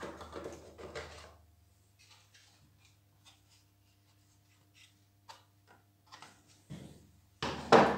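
Plastic housing parts of a pressure washer clicking and rustling as the control-panel cover is unclipped and lifted off by hand, with scattered small clicks, then a louder plastic scrape and clatter near the end.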